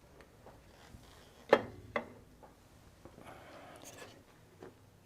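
Small handling sounds at a woodworking bench while hot hide glue is being got ready: two sharp knocks about a second and a half and two seconds in, then a brief scraping rub, and a light tap near the end.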